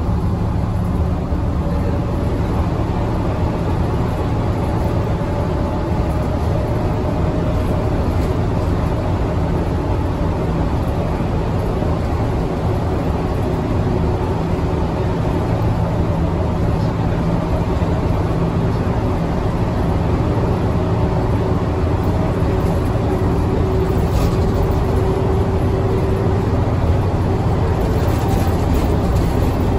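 Hiroden city bus running along the road, heard from inside the cabin: a steady engine drone with road noise and a faint whine.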